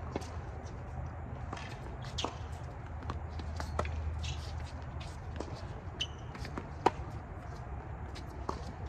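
Tennis rally on a hard court: sharp, separate pops of the racket hitting the ball and the ball bouncing, the loudest about seven seconds in, with footsteps and shoe scuffs, over a steady low hum.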